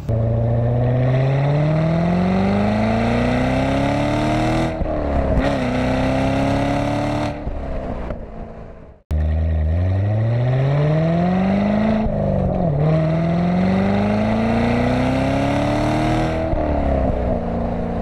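2014 Corvette Stingray's 6.2-litre V8 accelerating hard through the gears of its 7-speed manual. The engine note climbs, drops at an upshift, then climbs again. It cuts off abruptly about nine seconds in, and a second pull follows the same pattern. Heard from inside the open cabin with the targa roof off.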